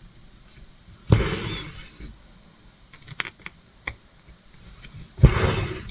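Two sharp knocks on a table, each followed by a short rustle, with a few small clicks between them: objects being handled and put down.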